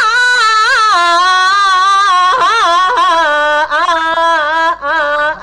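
A woman singing a Peking opera-style melody on wordless vowels, with long held notes that waver and slide in pitch and short breaks a little past halfway and near the end.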